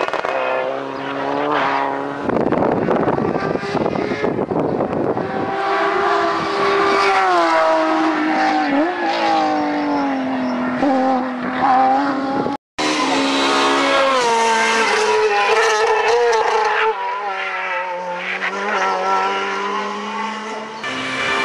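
Rally car engines revving hard, the engine note climbing and then dropping back again and again with gear changes. About two seconds in, a dense rush of exhaust and tyre noise lasts a few seconds as a car goes by close. Near two-thirds through, the sound cuts out for an instant before another engine is heard pulling through the gears.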